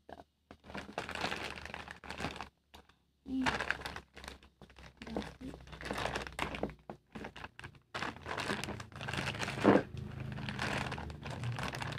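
Plastic courier mailer bag crinkling and rustling in irregular bursts as it is pulled and worked at by hand to open it. A sharp snap about ten seconds in is the loudest sound.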